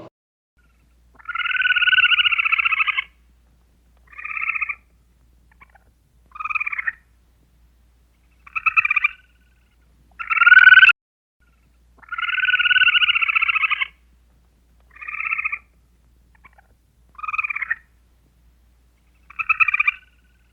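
Animal calls with a rapid rattling pulse: one long call of about two seconds, then four short calls a couple of seconds apart, and the same sequence repeats.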